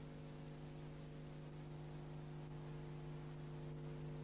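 Steady low electrical hum with a faint hiss on an old videotape sound track.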